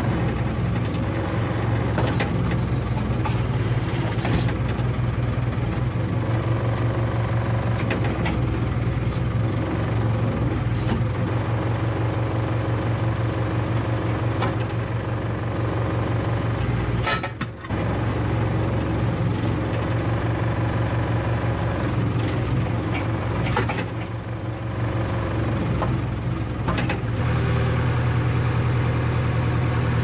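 Case 580K backhoe's diesel engine running steadily while the hydraulic controls are worked, with a few short clanks over it.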